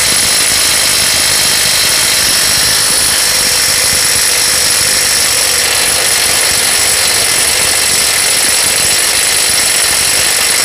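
Bull BL800NM cordless brushless impact wrench hammering continuously at full power on a nut torqued to about 1080 N·m, well above its 800 N·m rating, as it tries to break the nut loose. It makes a steady, loud, rapid hammering with a high ringing tone over it.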